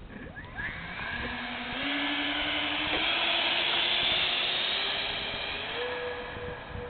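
Twin 70 mm electric ducted fans of an RC Me 262 jet spooling up under throttle with a whooshing hiss and a whine that slowly rises in pitch, as the model gets under way. Loudest about two to five seconds in, then easing off.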